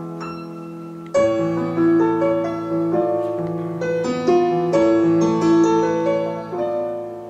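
Instrumental accompaniment playing an interlude between sung verses: held chords with a melody line over them. The music is quieter at first, and a fresh chord comes in about a second in.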